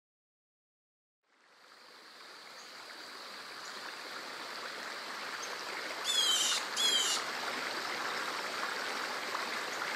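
Stream water flowing, fading in after a second of silence and growing steadily louder. Two short, high chirps sound near the middle, about a second apart.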